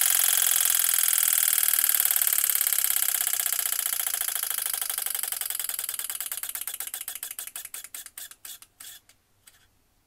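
A 5 kW diesel heater's fan scraping against its housing on every turn, a fast rapid ticking that slows and fades as the fan coasts down, stopping with a few last ticks near the end. The rubbing fan is what the owner blames for the heater's E-06 error.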